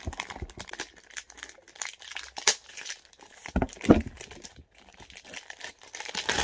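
Clear plastic wrap being torn and peeled off a perfume box, crinkling in irregular crackles, with a few sharper, louder snaps, the strongest about four seconds in.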